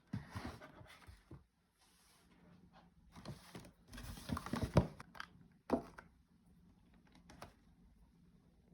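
Scattered light clicks, taps and knocks of small objects being handled, irregular, with a cluster of louder knocks about four to five seconds in and a sharp one just before six seconds.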